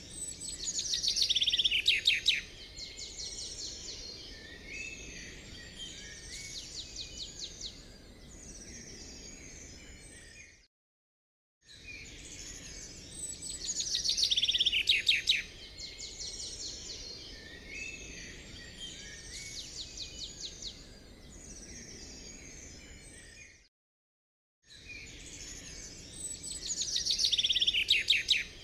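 Looped recording of birdsong, with chirps and rapid trills. The same stretch of about eleven seconds plays three times, each time broken by about a second of dead silence.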